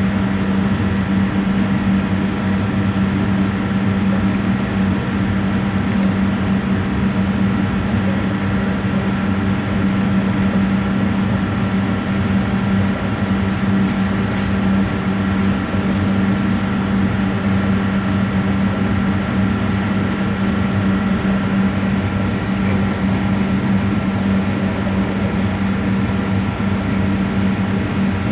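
A steady, loud mechanical hum with a strong low drone that does not change, and a run of faint light ticks about halfway through.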